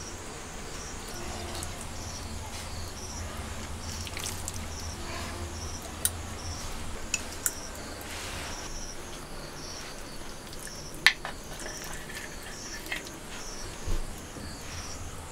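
Insects chirping steadily in a regular rhythm, about two chirps a second, with a few sharp clicks and taps as fish skewers are handled on the stove.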